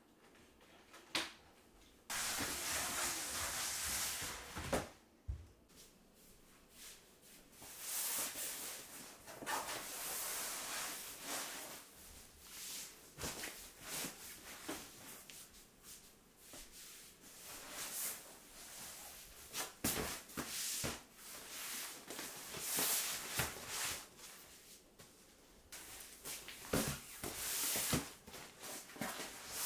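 Handling noises from stacked plastic storage drawers and a fabric storage case being moved: stretches of rustling and scraping, with many short knocks and clicks.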